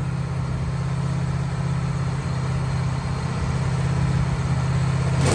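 Engine of a Wood-Mizer LT15 band sawmill running steadily, a constant low hum with no change in speed.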